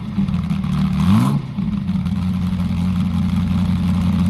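Car engine idling, blipped once about a second in: the revs rise quickly and drop back to a steady idle.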